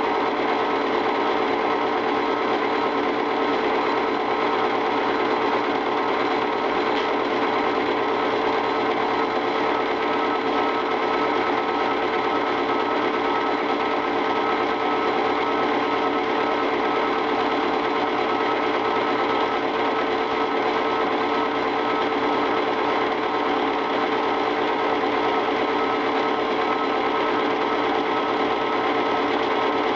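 Home-movie film projector running: a steady mechanical whir with a fast, even clatter from the film-advance mechanism.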